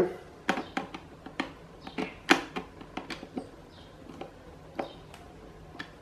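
Phillips screwdriver tightening small screws into the plastic cover of an electric fan motor: a string of irregular sharp clicks and taps as the tip works the screw heads and the plastic housing is handled, the loudest about two seconds in.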